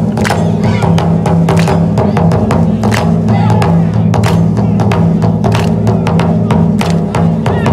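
Large massed ensemble of wadaiko (Japanese taiko drums), including big drums on tall stands, played together in a loud, dense, steady stream of strikes.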